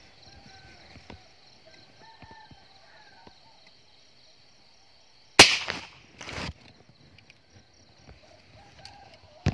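A single sharp gunshot about five seconds in, followed about a second later by a quieter knock. Insects chirp steadily in the background.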